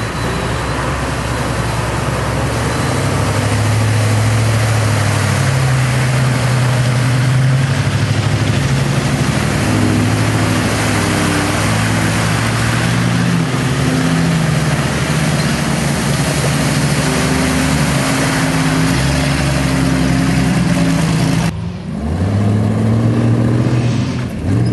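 Off-road pickup truck and Jeep engines running and revving as they drive through deep mud and water, with splashing. Near the end the sound drops out briefly, then an engine revs up with rising pitch.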